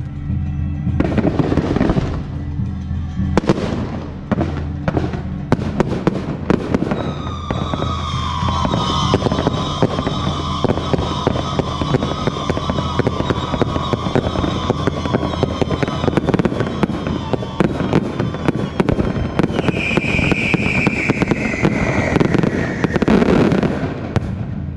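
Fireworks going off in a dense barrage: many sharp bangs and crackling, with long, slowly falling whistling tones through the middle.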